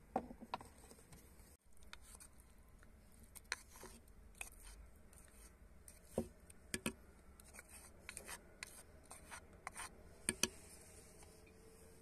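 Wooden spoon scraping ground paste out of a wooden mortar into a clay pot: soft scrapes broken by sharp wooden knocks, the loudest two close together near the end.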